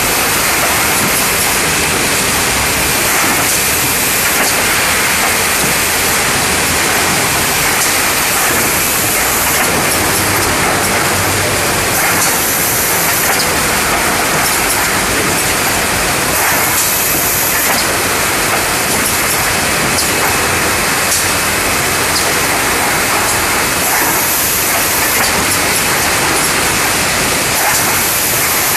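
Wrap-around case packer running: a steady, dense mechanical noise with faint clicks now and then.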